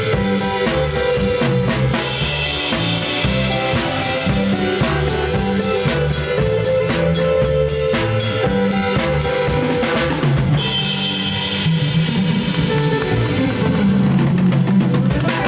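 Live band playing an instrumental passage of the song, with drum kit and guitar over a repeating bass line at a steady beat.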